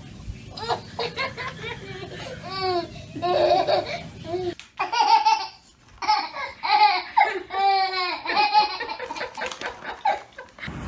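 High-pitched laughter in repeated short bursts, with a low background hum that cuts out about halfway through.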